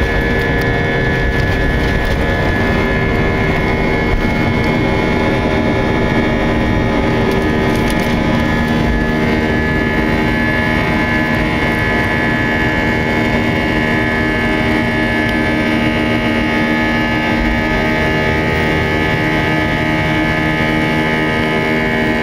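Airbus A319 turbofan engines at takeoff power, heard from inside the cabin beside the wing: a loud, steady jet engine noise with several whining fan tones, carrying through lift-off and into the climb.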